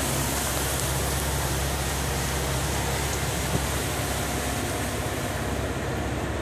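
Water spray of an automatic car wash pelting a Jeep Wrangler, heard from inside the cabin: a steady hiss over a low hum.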